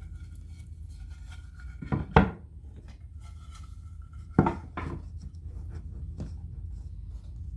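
Wooden 2x4 pieces knocking as they are handled and set down on the workbench: a few sharp knocks, the loudest a double knock about two seconds in and another about four and a half seconds in.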